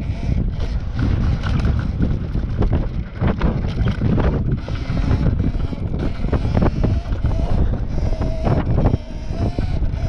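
Strong wind buffeting the microphone while an Apollo RFN electric dirt bike is ridden. A faint wavering whine, likely the bike's electric motor, comes in about two-thirds of the way through.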